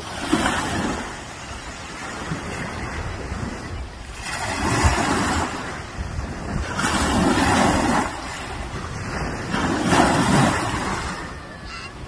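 Small waves breaking and washing up a pebbly beach: rushing surf that swells and fades in about four surges.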